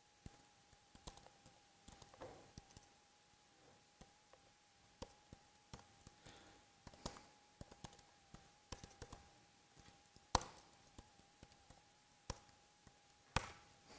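Typing on a computer keyboard: faint, irregular keystroke clicks, with two sharper, louder clicks about ten seconds in and near the end. A faint steady high hum runs underneath.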